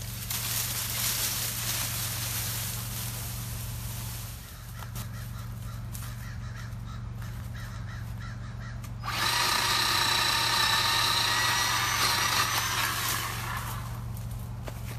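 Bauer 20V cordless electric chainsaw running at full speed for about four seconds, cutting an overhead tree limb with a steady, high motor whine. Before it starts there is a rustling hiss of branches being handled.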